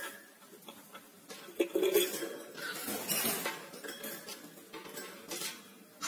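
Cockatiel scrambling and flapping in a wire cage: a flurry of metallic clinks and rattles from claws, beak and wings against the cage bars and perch, sharpest about one and a half seconds in and busiest through the middle.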